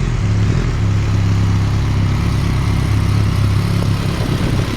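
2006 BMW K1200GT's inline-four engine through a Delkevic aftermarket exhaust, running steadily at low revs near idle as the bike creeps up to a stop.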